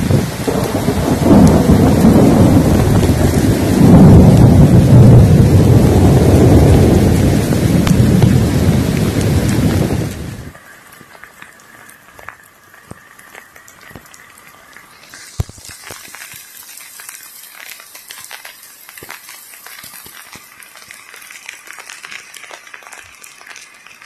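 Heavy rain with a loud low rumble that surges twice. About ten seconds in it cuts off abruptly to a much fainter patter of rain with scattered drips and ticks.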